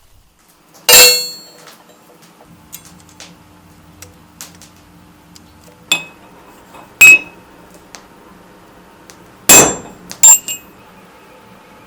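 Steel blacksmithing tools clanking and ringing: five sharp, irregularly spaced metal-on-metal clanks, the first the loudest, with lighter clicks between.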